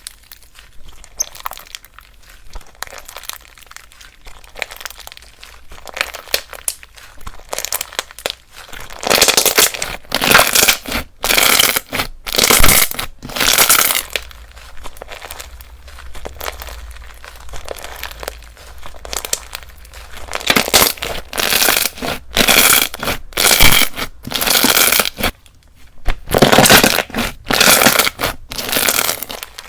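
Slime being squished and pressed by hand, giving repeated crackling, popping squishes. The first few seconds hold soft crackles, then louder presses follow one after another, each about half a second to a second long.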